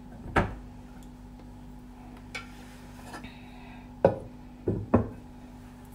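Dishes and utensils being set down on a table: a sharp knock about half a second in, a couple of faint clicks, then three sharp knocks close together near the end, the first of these the loudest, over a steady low hum.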